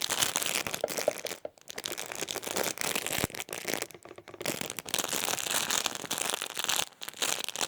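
Crinkle sounds: something crinkly crumpled and handled in a dense crackling run, with two brief pauses about one and a half and four seconds in.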